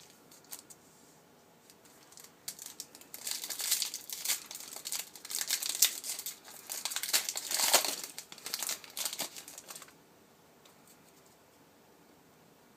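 Yu-Gi-Oh booster pack wrapper crinkling and tearing as it is opened, a dense run of crackles starting about two and a half seconds in and stopping about ten seconds in.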